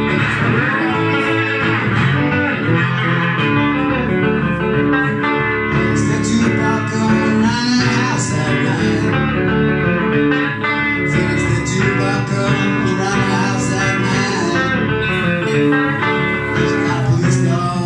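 Live solo blues on an electric guitar played through a small combo amp, picked and strummed without a break.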